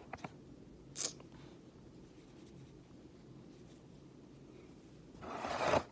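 Small clicks, a brief scrape about a second in, then a louder half-second rustle near the end: hands handling the granola cups' packaging and a tissue.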